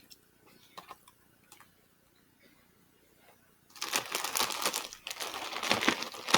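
A few faint clicks and taps, then about four seconds in, loud crinkling of plastic being handled for a couple of seconds.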